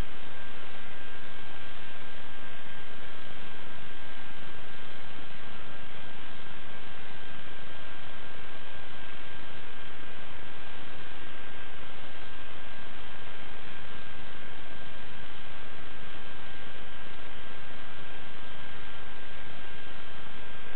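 Steady electronic hiss with one constant high whine over it and no changes: the self-noise of a security camera's built-in microphone.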